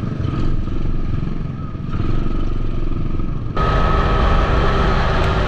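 Ohvale minibike engines running as the bikes roll out of the pit lane. About three and a half seconds in, the sound cuts abruptly to on-board audio of a minibike at speed on track: a louder, steady high engine note with wind rush.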